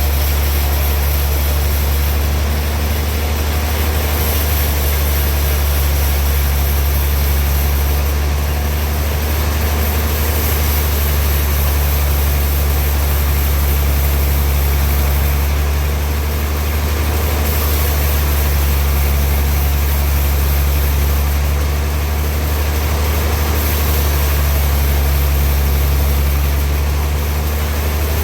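Sawmill machinery running steadily: a loud, constant low engine drone with an even hiss above it, easing off slightly a few times.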